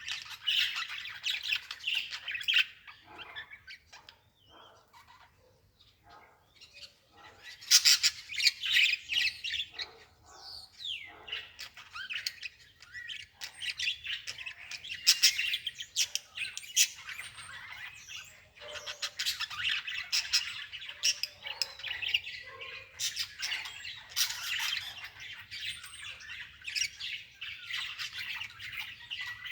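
Birds chirping and squawking in rapid, overlapping calls, with a quieter lull a few seconds in.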